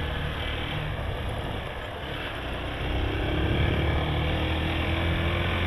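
Small motorcycle's engine running at low road speed with wind rush on a helmet-mounted camera's microphone. It gets a little louder about halfway through as the throttle opens.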